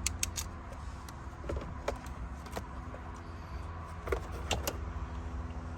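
Scattered light clicks and knocks from hard objects being handled inside a car, about eight over the few seconds, over a steady low hum.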